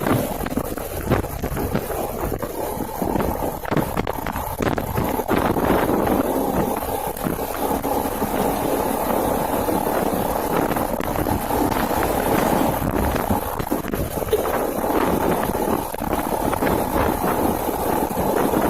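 Small 110cc single-cylinder motorcycle running on the road, with steady road and engine noise, wind rushing over the microphone and frequent irregular knocks and rattles.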